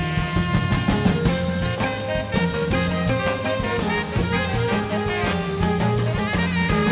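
A live jazz ensemble playing, with saxophone, violins, trumpet and clarinet holding sustained melodic lines over a drum kit and bass.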